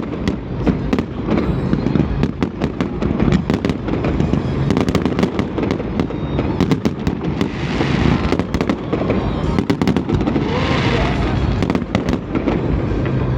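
Aerial fireworks going off in a rapid, continuous barrage: booming bursts under a steady patter of sharp crackles. There are two longer hissing swells of crackle, about eight and about ten and a half seconds in.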